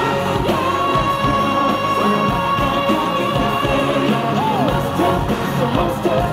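Live K-pop concert music: male vocals sung into handheld microphones over a loud backing track with a steady beat, including a long held note in the first half.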